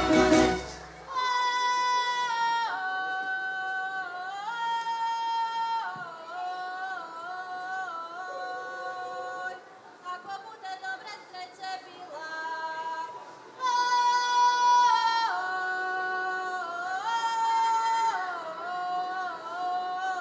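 A band stops about a second in, and a group of women's voices sings a traditional Croatian folk song unaccompanied. They hold long high notes and slide between pitches, in phrases that break off and start again.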